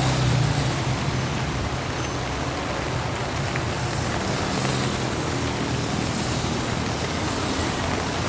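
Steady hiss of falling rain, with a vehicle engine running low underneath, a little louder in the first second.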